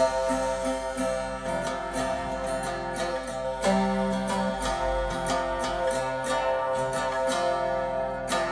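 Handmade experimental string instrument, the "String Stick", played with a violin bow: several sustained, ringing string tones overlap in a hypnotic drone, with a new low note entering a little under four seconds in.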